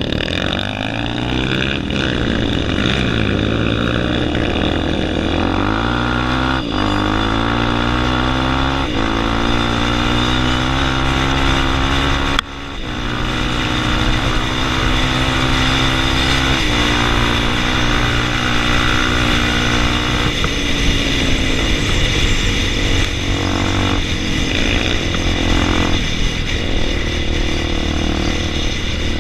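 Dirt-bike engines running at full throttle in a drag race, the pitch climbing in steps through the first several seconds, then held at high revs. Loudness drops sharply for a moment about halfway through.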